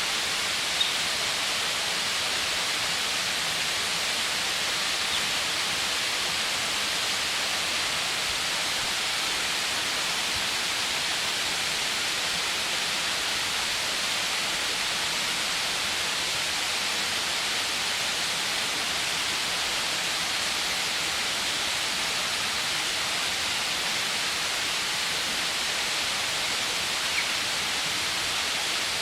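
Waterfall: a steady, even rush of falling water with no change in strength, its hiss sitting high.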